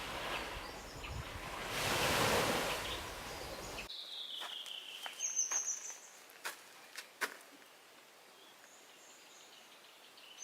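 Outdoor ambience: a rushing noise that swells about two seconds in, then cuts off abruptly. A quiet stretch follows with a high whistle falling slowly in pitch, a few short high chirps and a couple of sharp clicks.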